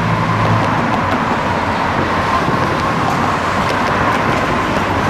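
Road traffic on a steel truss bridge: cars driving past, a steady noise of tyres and engines, with an engine hum fading away in the first half-second.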